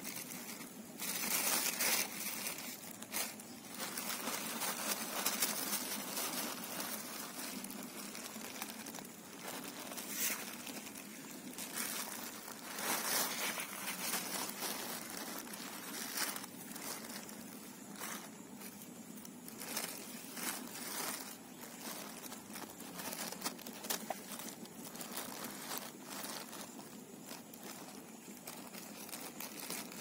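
Thin black plastic bag crinkling and rustling in irregular bursts as a hand rummages through it, the bag holding a catch of small fish.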